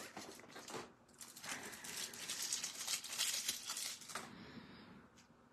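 Thin clear plastic packaging crinkling and crackling as a small action-figure head is worked out of its moulded blister tray by hand. A few sharp clicks come first, then a dense run of crackles from about a second in until about four seconds.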